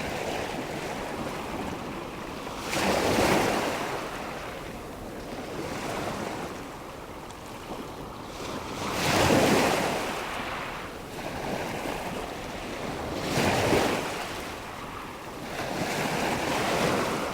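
Sea waves breaking on the shore: a steady wash of surf with four louder surges a few seconds apart, each swelling and then fading.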